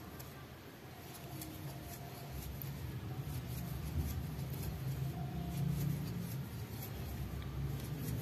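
Faint rustling and light ticking of a 2 mm crochet hook working baby yarn, stitch by stitch. Under it is a low rumble that grows louder about two seconds in.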